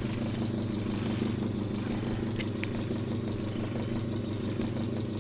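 A 1/3 hp electric motor belt-driving a rotary HVAC compressor, running steadily as a vacuum pump on a sealed soda bottle, with a couple of light clicks about halfway through.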